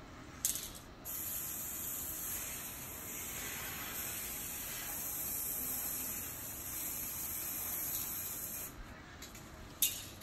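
Aerosol can of copper spray paint spraying: a short burst about half a second in, then one long steady hiss of about seven and a half seconds, and another short burst near the end.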